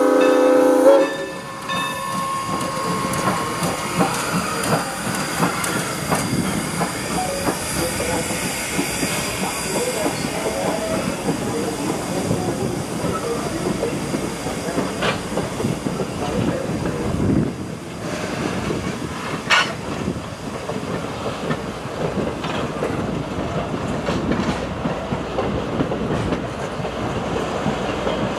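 The N&W 475 steam locomotive's whistle cuts off about a second in, then a train of passenger coaches rolls steadily past, its wheels clicking over the rail joints.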